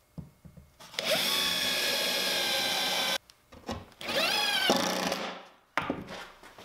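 Cordless drill boring into a birch plywood panel in two runs. The first is a steady whine lasting about two seconds. The second starts about a second later, its pitch climbing as the motor spins up, and then winds down. A few light knocks of the tool being handled come between the runs.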